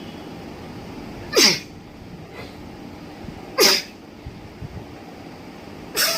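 A woman sneezing forcefully three times, about two seconds apart, each one a sharp burst with a brief voice falling in pitch. The last comes near the end.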